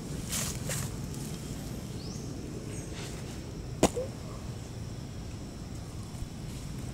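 Leaves rustling briefly near the start as a baby monkey handles the plants around it, over steady low background noise, with one sharp click a little under four seconds in.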